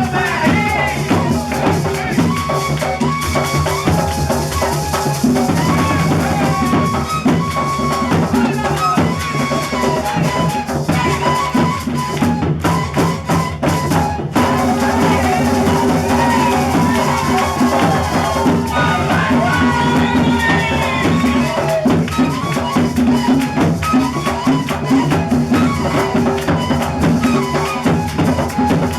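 Live gaita ensemble music: drums and shaken maracas keep a steady rhythm under pitched melody instruments.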